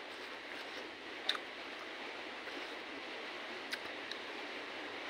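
Eating sounds: a few sharp mouth clicks and smacks of chewing, about a second in and again near four seconds in, over a steady hiss.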